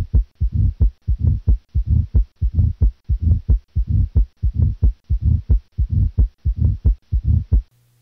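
Recorded heart sounds from the cardiac apex, beating steadily, with a uniform, low-pitched diastolic murmur between the beats: the murmur of mitral stenosis. The recording stops shortly before the end.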